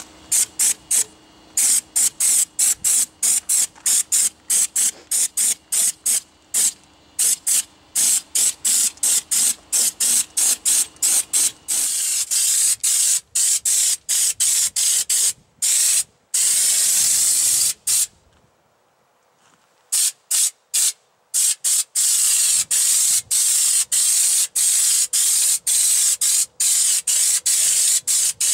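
Compressed-air bedliner spray gun spraying U-POL Raptor bedliner, hissing in rapid short bursts, about two a second, as the trigger is pulled and released. From about halfway it gives longer steady passes, with one pause of about two seconds.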